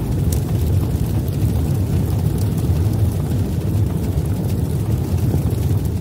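Steady deep rumbling sound effect of an animated title intro, a low whooshing drone with no clear pitch.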